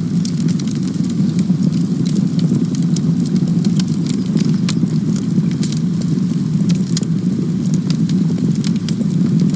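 Campfire burning: a steady low rumble of the flames with frequent sharp crackles and pops from the burning wood.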